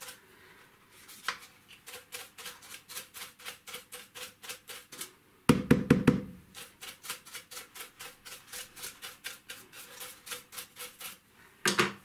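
A small brush scrubbing dust out of the inside of a dismantled Dyson V7 vacuum part, in quick dry strokes about four or five a second. A single louder knock comes about halfway through.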